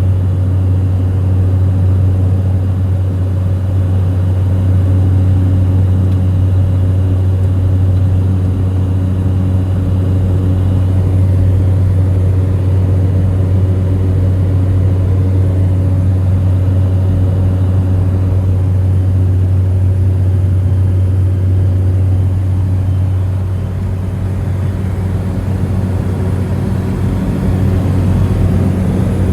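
Cessna 208 Caravan's single PT6A turboprop engine and propeller running steadily: a constant deep drone with a strong low propeller hum. The level dips slightly about three-quarters of the way through, then comes back.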